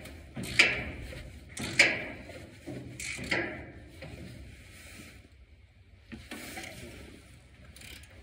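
Sharp metal clicks and clanks from hand tools working the bolts of a tractor's sheet-metal dash panel, about one a second at first, then fading to faint handling noise.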